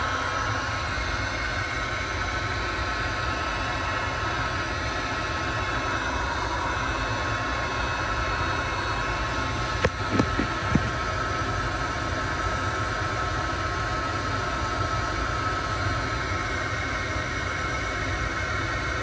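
A motor running steadily with a high hum over an even whir; a few short knocks about ten seconds in.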